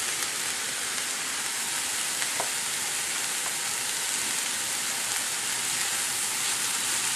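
Onion, mushrooms and torn kale sizzling as they fry in a pan: a steady, even hiss, with one faint click about two and a half seconds in.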